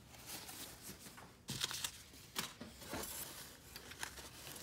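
Packing material being handled and torn as statue parts are unwrapped: faint rustling and crinkling, with sharper tearing or handling noises about one and a half, two and a half and three seconds in.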